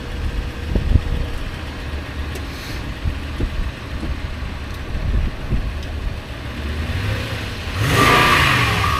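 Toyota pickup truck's engine idling steadily, a truck that runs but will not move. Near the end a louder engine noise swells with a rising pitch, and a reversing beep starts up.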